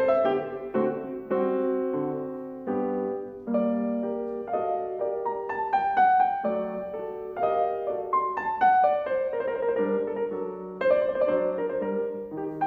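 Steinway grand piano played solo: a classical piece in a steady stream of notes and chords, with the melody moving over an accompaniment in the lower register.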